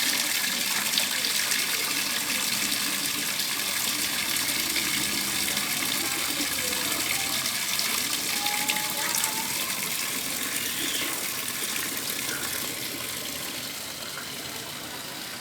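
Heavy rain falling steadily, a dense hiss of drops that eases slightly toward the end.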